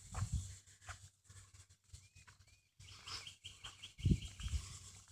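A songbird chirping: two short chirps, then a quick trill of repeated high notes about three seconds in. Low rumbling thumps sound near the start and, loudest, about four seconds in.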